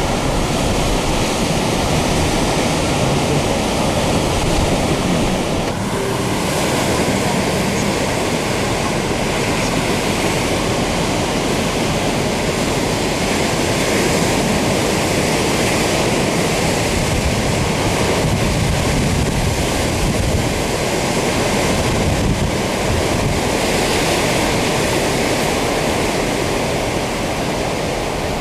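Heavy surf on a rough sea: large waves crashing and washing in continuously, in the high swell left after a typhoon has passed. A dense, steady rush with slow swells in loudness.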